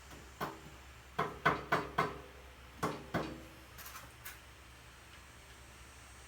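Metal clicks and sharp taps as a C-clip is fitted onto the mower's wheel axle to hold the tire and rim on: about seven taps in the first three seconds, then a few fainter ticks.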